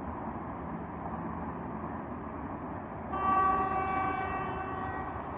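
Horn of a distant 3ES5K 'Ermak' electric locomotive hauling a freight train: one steady blast of about two seconds, starting about three seconds in, over a steady rushing background.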